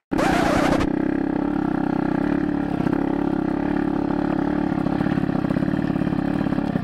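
Yamaha RX-135 single-cylinder two-stroke motorcycle engine running as the bike is ridden at a slow, steady pace, its note holding a steady pitch. A short hiss comes in the first second.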